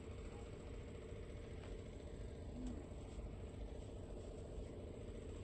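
Vehicle engines idling in the background: a faint, steady low rumble and hum.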